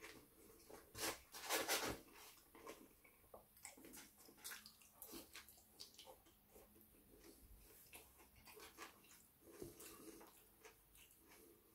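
Close-up eating sounds of a person chewing doner kebab meat and chips: faint wet smacking and clicking mouth noises, with a louder noisy rush about one to two seconds in.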